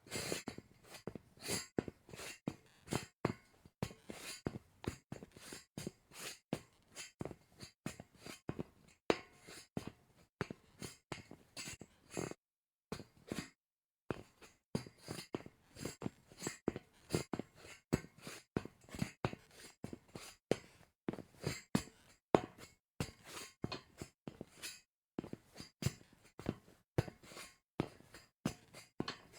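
Sneaker footsteps on a metal grate: a long series of sharp steps, about two to three a second, with a short pause about halfway through and another brief one near the end.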